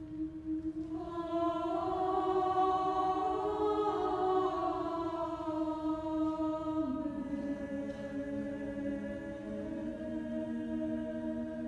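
Choir singing slow chant in long held notes, several voices moving together. It swells about a second in and steps down to lower notes about seven seconds in.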